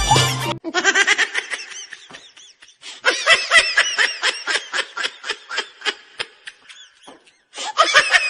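High-pitched laughter: a quick run of short giggles that dies down and then breaks out again more strongly.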